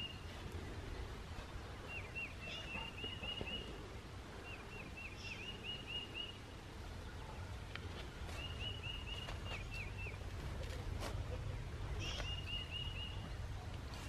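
A songbird repeating the same short trill of quick, evenly spaced notes about five times, a second or two each with pauses between, faint over a low outdoor background.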